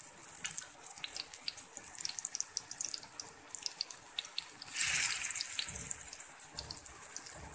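Batter-coated jackfruit pakoras sizzling and crackling in hot oil, with many small pops. A louder surge of sizzling comes about five seconds in, as another battered piece goes into the oil.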